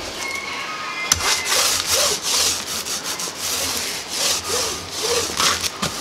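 A 4-inch paint roller loaded with melted beeswax rolled back and forth over a plastic beehive foundation sheet, a rasping rub of the roller on the foundation's textured surface in repeated strokes that start about a second in.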